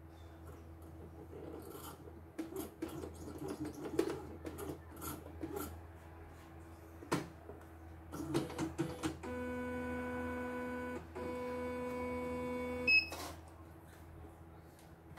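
Clicks and knocks as a computerized embroidery machine is handled and its embroidery unit fitted, then a steady motor whine in two stretches of under two seconds each with a short break between, as the machine's motors drive, followed by a single short high beep from the machine.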